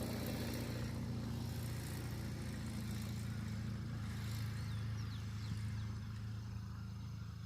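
A vehicle engine idling steadily, with a constant low hum that eases slightly near the end.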